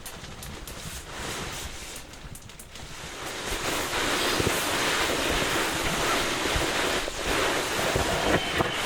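Wind gusting and buffeting the microphone: a rushing hiss with low rumbling thumps that swells about three and a half seconds in and stays strong.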